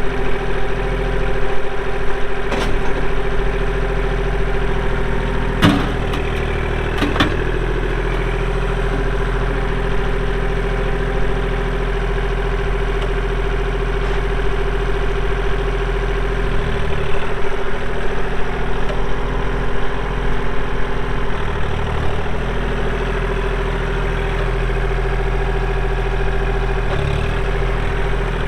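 Kubota L2501 tractor's three-cylinder diesel engine running steadily, with a few sharp clanks in the first several seconds and the engine note shifting slightly a few times later on.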